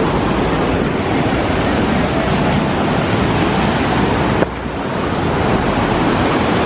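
Whitewater cascade of a mountain creek rushing steadily over rocks below a footbridge, loud and even. A single short click about four and a half seconds in, after which the water sound briefly dips.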